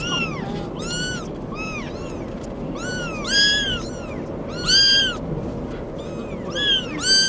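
Several young kittens mewing over and over: short, high cries that rise and fall in pitch, at different pitches and sometimes overlapping, the loudest about halfway through and near the end.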